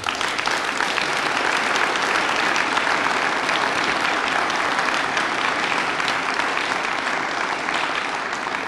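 Audience applauding: many hands clapping in a dense, steady patter that eases off a little near the end.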